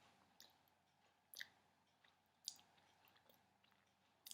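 Near silence broken by a few faint, sparse mouth clicks and smacks, about one a second with the last near the end the loudest, as someone tastes runny almond butter.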